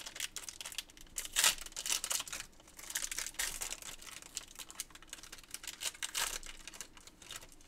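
Foil trading-card pack crinkling in the hands as it is torn open, in irregular bursts of crackle, loudest about a second and a half in.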